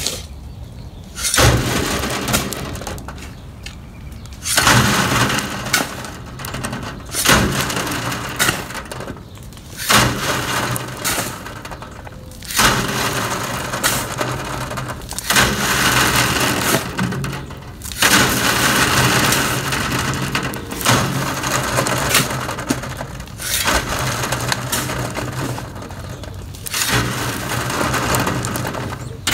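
Shovelfuls of rocky soil thrown onto a wooden-framed wire-mesh sifting screen, stones rattling down the mesh while the fine soil falls through. A new load lands every two to three seconds, each starting suddenly and trailing off over a second or two.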